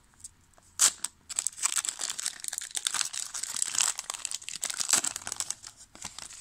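Foil wrapper of a trading-card pack being torn open and crinkled by hand. A single sharp snap of the tear comes about a second in, followed by steady crackling of the foil as the cards are worked out.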